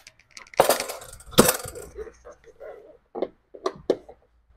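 Knocks, scrapes and clatter as a mechanic gets down on a rolling creeper and works at a car's body-kit side skirt with an 8 mm nut driver. There are two loud knocks, about half a second and a second and a half in, then scattered sharp clicks near the end.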